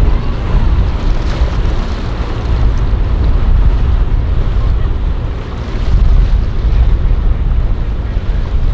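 Wind rumbling on the microphone over the wash of waves, with the steady drone of boat motors running through the inlet.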